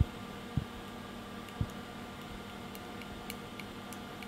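Light metallic ticks of a precision screwdriver turning a tiny screw in a vape mod's metal frame, five or so spread over the last few seconds, with a few soft knocks of the frame being handled near the start, over a steady background hum.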